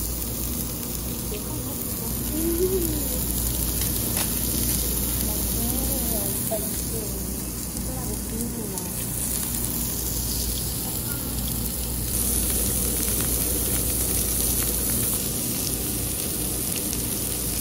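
Pork sizzling on a round barbecue grill plate over charcoal, a steady frying hiss, with faint voices in the background.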